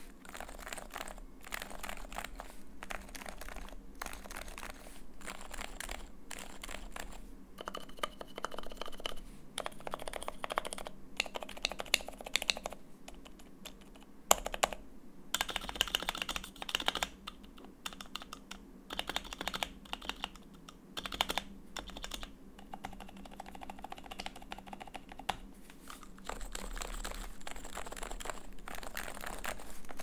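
Typing on a Realforce R1 87U Topre keyboard with 55 g rubber domes and lubed sliders in a Botanforce Lite housing: a steady run of soft, muted keystrokes with a few short pauses.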